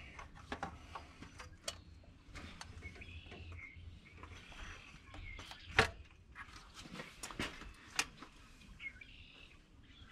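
Scattered clicks and knocks of a metal air cleaner housing and its rubber hoses being worked loose and lifted off a 1979 Dodge D50's carburetor. Two sharper knocks come about six and eight seconds in, with faint bird chirps in the background.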